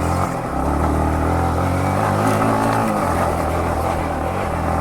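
Yamaha MT-15's 155 cc single-cylinder engine running under throttle while riding, its note climbing slightly and then dropping about three seconds in.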